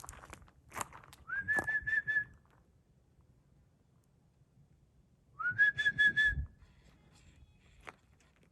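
A person whistling to call a dog back: two whistles about four seconds apart, each sliding up into one held, fluttering note.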